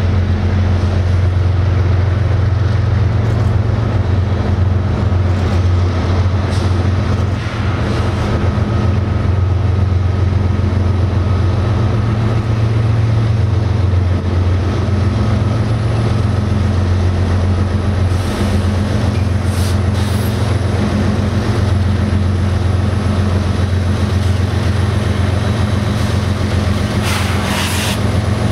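Norfolk Southern diesel-electric road locomotives approaching and drawing alongside at the head of a tank-car train, their engines giving a loud, steady low drone. A short hiss comes near the end as the lead units pass close by.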